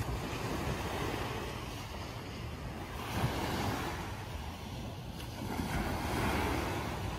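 Small waves breaking and washing up a sandy beach, the surf swelling and easing every couple of seconds, with wind rumbling on the microphone.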